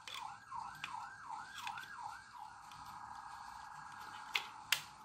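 Faint emergency vehicle siren, sweeping up and down about three times a second, then switching about two and a half seconds in to a faster, steady warble. Two light clicks near the end.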